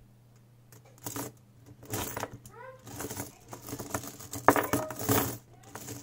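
A pile of metal coins clinking and clattering as a strong block magnet is pushed into them and lifted, the coins snapping onto the magnet and knocking against each other. The clatter comes in irregular bursts from about a second in and is loudest past the middle.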